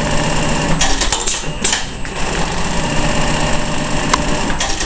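Juki AMS-223C computer-controlled pattern sewing machine stitching bar tacks: a steady, fast stitching run broken by a few sharp clicks about a second in and again near the end.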